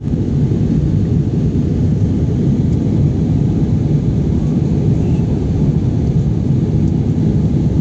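Steady deep rumble inside a jet airliner's cabin in flight: engine and airflow noise coming through the fuselage.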